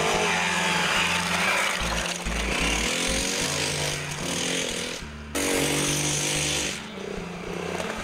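Four-stroke single-cylinder Honda XR dirt bike engine revving up and down as it is ridden hard around a dirt trail bend, with music underneath. The sound breaks off abruptly for a moment about five seconds in.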